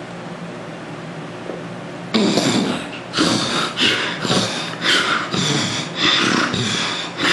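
A person's loud, rasping snoring and snorting noises in quick succession, starting suddenly about two seconds in over a steady background hiss.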